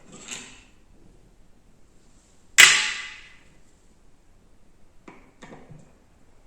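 A single sharp clack with a brief ring-off about two and a half seconds in, then a few faint clicks: metal parts and tools being handled and set down on a workbench while an air rifle is taken apart.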